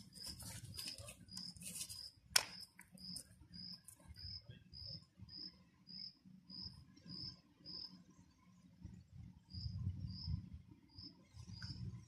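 An insect chirping steadily: short high chirps at one pitch, about two a second, with a brief break about two-thirds of the way through. Over the first two seconds there is a rustle of hands handling bait, ending in one sharp click.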